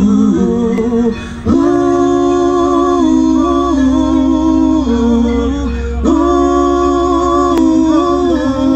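A man singing live into a microphone in long held notes, his phrases breaking off about a second and a half in and again around six seconds, over a steady low drone.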